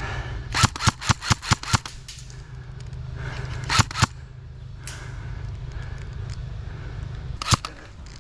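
Airsoft guns firing: a quick string of about seven sharp shots in just over a second, then two more a couple of seconds later and another pair near the end.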